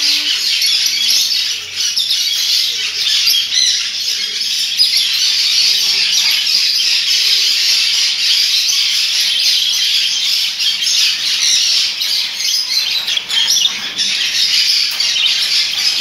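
Many caged budgerigars and lovebirds chirping and chattering all at once, a loud, unbroken din of high chirps with no pauses.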